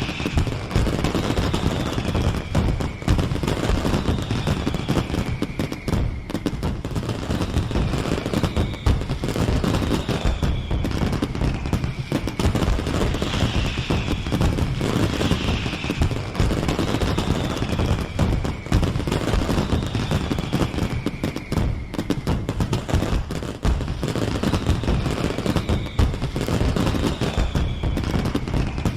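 Fireworks going off in a dense barrage, with rapid bangs and crackling throughout. A high whistle falls in pitch about every two seconds.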